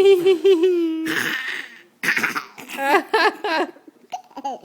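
A baby laughing: a wavering squeal, then a breathy gasp and a run of short, choppy giggles.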